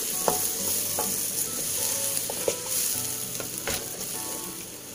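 A wooden spatula stirring beef bones and stock in a stone-coated wok, with a steady sizzling hiss from the hot pan. The spatula knocks against the pan now and then.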